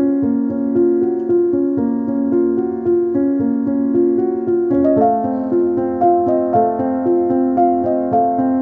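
Soft background piano music, a gentle melody of sustained notes that moves to a new chord about five seconds in.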